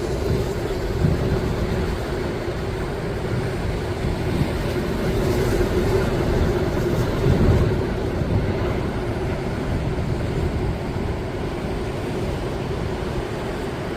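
Heavy sea surf rumbling, with wind on the microphone; it swells about a second in and again around seven and a half seconds.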